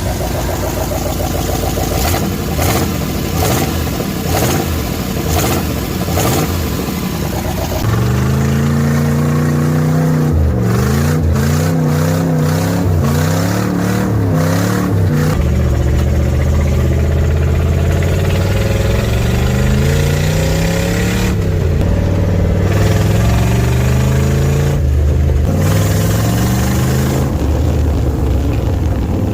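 V8 engine of a Toyota Hilux running and being revved over and over, its pitch climbing and falling again and again. The first part is rougher and noisier before the revs turn clean and steady.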